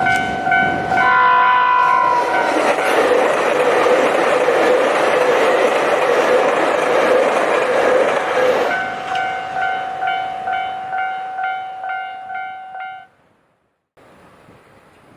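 Japanese level-crossing alarm bell ringing in steady pulses of about two dings a second, with a short train horn blast about a second in. A train then passes loudly over the crossing for about six seconds, covering the bell. The bell is heard alone again afterwards and cuts off about 13 seconds in, followed by faint wind.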